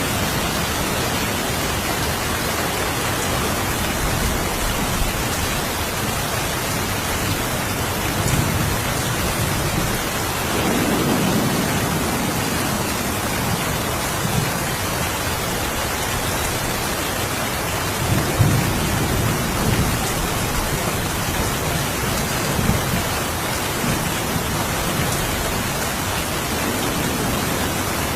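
Steady rain falling, with low rolls of distant thunder rumbling twice, about ten seconds in and again near eighteen seconds.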